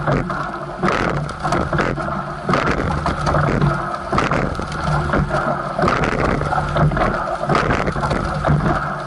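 Racing coxless four rowing shell under way at race pace: water rushing along the hull and wind on the microphone, with a knock from the oars and riggers roughly every second as the crew takes each stroke.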